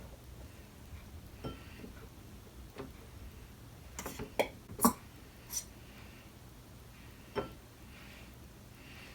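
Scattered light knocks and clinks of slime-kit containers and bottles being handled and set down, about eight in all, with a quick cluster near the middle.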